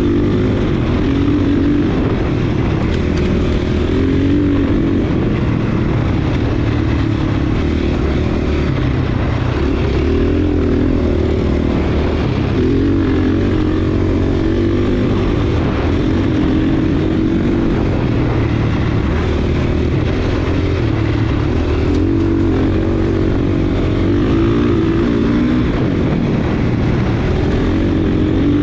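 Dirt bike engine running at riding speed, its revs rising and falling every few seconds with the throttle.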